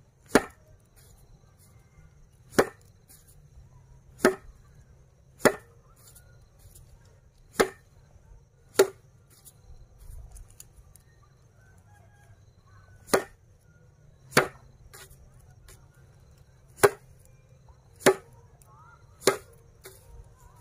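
A bundle of dried grass flower heads swung overhead and slapped down hard on a flat board: eleven sharp, loud whacks, about one to two seconds apart, with a pause of about four seconds midway.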